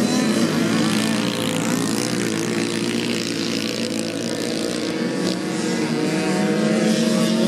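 Several small two-stroke moped motocross bikes racing, their engines buzzing at high revs in overlapping pitches. One bike comes close near the end and gets louder.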